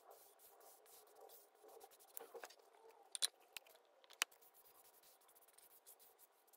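Faint scraping and rubbing of a flat card spreader working oil over a hardwood cutting board. A few sharp clicks come a little past the middle.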